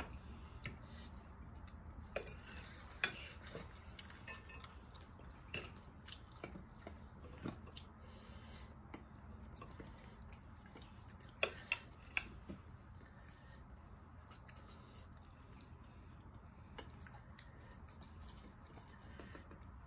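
Cutlery clinking and scraping now and then against ceramic plates as a knife cuts into a roast chicken, with a few sharp clinks about eleven to twelve seconds in, over a low steady room hum.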